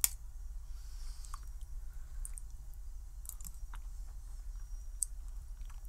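A metal spoon clicking against a ceramic soup bowl, one sharp click at the start and a few lighter ones later, with quiet chewing and sipping of a spoonful of minestrone soup. A steady low hum runs underneath.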